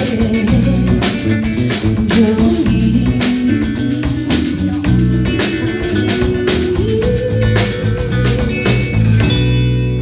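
Live country band playing: electric guitar, bass guitar and drum kit under a woman's singing. Near the end the drums stop and the band holds a final chord as the song ends.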